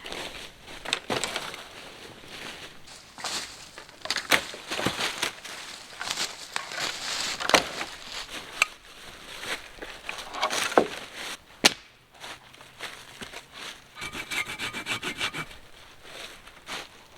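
Hand saw cutting through dead wood for firewood in uneven strokes, with a few sharp cracks of wood.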